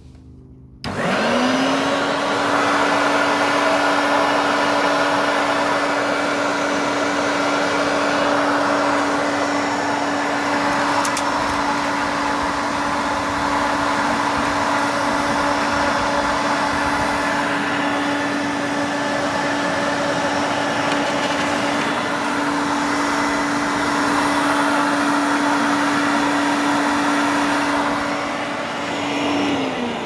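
Hoover Turbopower Freedom upright vacuum cleaner starts up about a second in, its whine rising quickly to a steady pitch. It runs evenly, then winds down near the end as it is switched off. Its brush roll is not turning, which the owner puts down to a drive belt that is either severely stretched or snapped.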